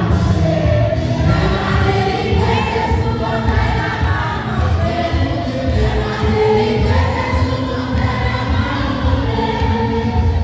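A choir singing a hymn with musical accompaniment, continuously and without pauses.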